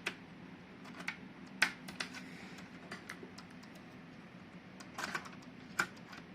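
Irregular light clicks and taps from computer parts being handled, over a faint steady low hum.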